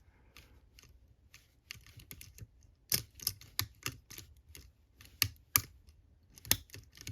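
Metal lever pick clicking against the levers inside a four-lever padlock as they are lifted under tension: irregular sharp clicks, the loudest about three seconds in and a cluster between five and seven seconds.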